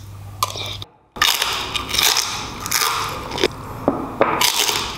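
Close-miked biting and chewing of braised pork leg (humba pata), crackly and loud in repeated bouts, starting after a brief drop to silence about a second in.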